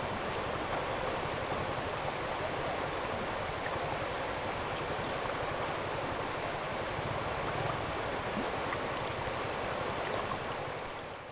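A shallow river flowing over a stony bed, a steady even rush of water that fades out at the end.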